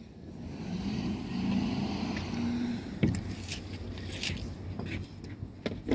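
A motor vehicle's engine hums and rises a little in pitch for about three seconds, then cuts off sharply. A few light clicks and taps follow.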